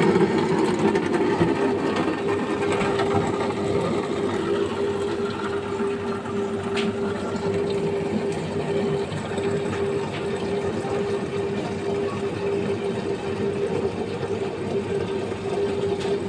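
Ecosoft water vending machine running its pump with a steady hum while a thin stream of water pours into a large plastic bottle.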